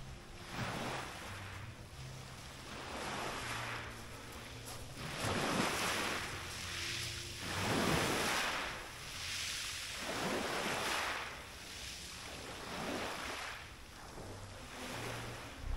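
Small waves breaking and washing up a pebble beach, each surge rising and falling away about every two to three seconds.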